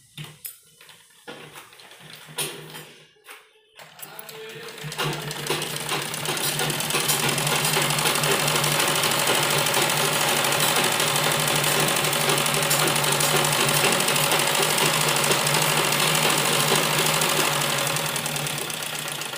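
Gulzar sewing machine stitching a seam. A few light clicks as the cloth is set under the needle, then about four seconds in the machine gets going and runs at a steady fast pace, slowing to a stop just before the end.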